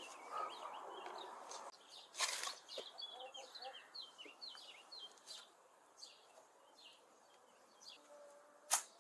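A metal spade digging into dry, stony soil: a few scraping thrusts and scoops of earth, then a single sharp knock near the end, the loudest sound. Small birds chirp throughout, most busily in the middle.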